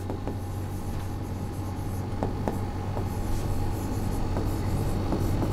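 Pen writing on a board: short scratches and taps of the tip as letters are formed, over a steady low hum.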